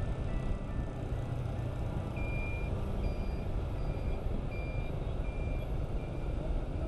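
Motorbike riding through city traffic: a steady low rumble of engine and traffic. From about two seconds in, a short high electronic beep repeats about every 0.7 seconds.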